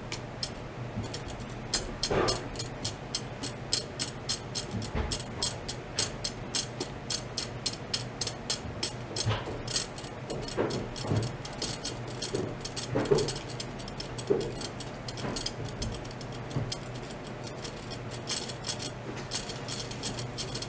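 Ultrasonic probes clamped to metal rods, running in a test setup. A steady low hum runs under dense, irregular crackling ticks, with a few brief louder knocks now and then.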